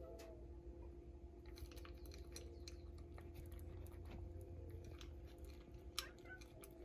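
Faint, scattered crunching clicks of a cat chewing dry kibble, with one sharper click about six seconds in, over a steady low hum.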